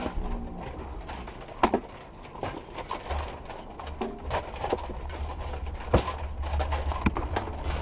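Weapons striking shields and armour in armoured combat sparring: irregular sharp knocks and cracks, three of them loud, among many lighter clacks, over a low rumble.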